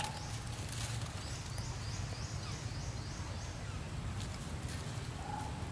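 Outdoor ambience: a steady low rumble with a bird singing a run of about eight short, high, falling notes during the first few seconds, plus a few faint clicks.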